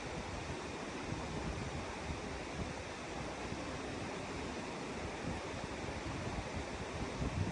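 Mountain river water rushing steadily over rocks.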